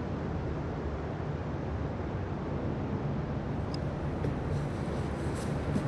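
Glacial meltwater making a low, steady rumbling drone. From about halfway through, faint small clicks and ticks come in over it.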